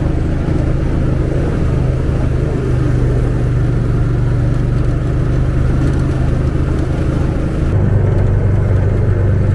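ATV engine running steadily under a husky team, a low even hum whose pitch drops slightly about eight seconds in.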